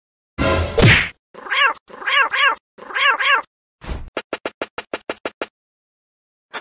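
Cartoon sound effects: a short noisy burst, then a cat meowing several times in short, arching calls, followed by a quick run of sharp clicks.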